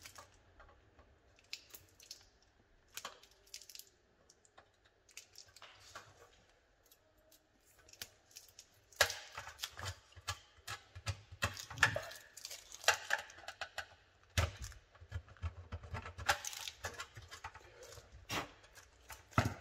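A pointed hand tool scraping and clicking against an LED strip, picking away a faulty LED. There are scattered small clicks and scrapes, sparse at first and coming thicker through the second half.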